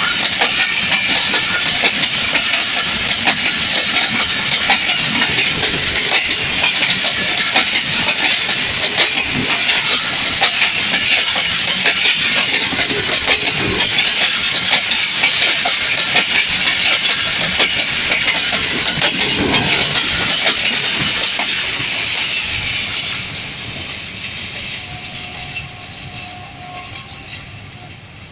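Pakistan Railways express passenger coaches passing at speed close by, a steady rushing rumble with a rapid clatter of wheels over the rail joints. About three-quarters of the way through the noise fades away as the last coaches go by and the train draws off.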